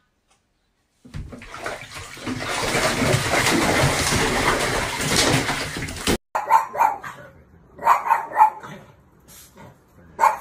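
Bathwater splashing heavily for about five seconds as a cat goes into a filled bathtub, stopping abruptly. After that, a dog barks in short bursts, three or four times.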